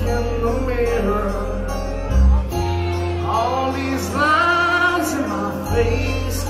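A band playing live, with a singing voice over guitar and a strong, steady bass.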